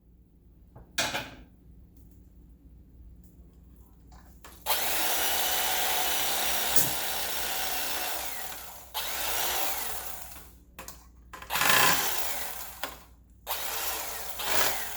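Electric carving knife running, with one long run of about four seconds and then three shorter bursts as it starts and stops, cutting through roast chicken. A short knock comes about a second in.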